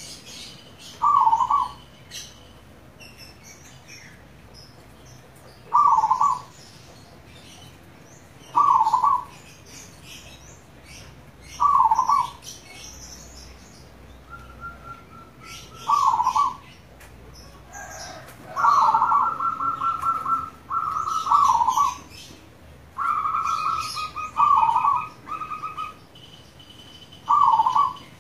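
Zebra dove (perkutut) cooing, a short call repeated about every three seconds. From about halfway, longer, rapidly pulsed trilling calls come in between the coos, with faint high chirps of other small birds in the background.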